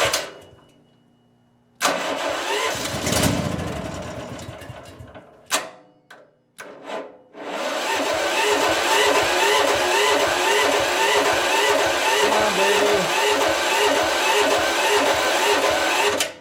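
Propane-fuelled backup generator engine being cranked by its electric starter without starting: a first attempt that fades out over a few seconds, a couple of brief bursts, then a long steady crank of about nine seconds with an even rapid pulse that stops abruptly. The engine is over-choked.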